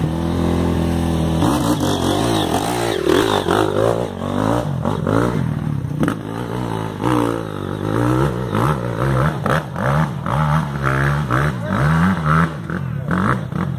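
Off-road motorcycle engine revving, its pitch repeatedly rising and falling as the rider climbs a steep dirt trail.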